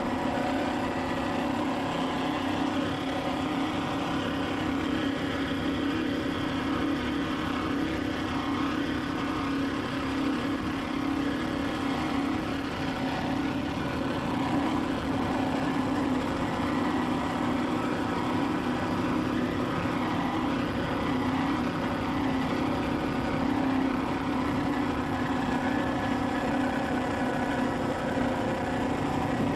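Steady engine drone at a constant pitch, holding even with no revving or breaks.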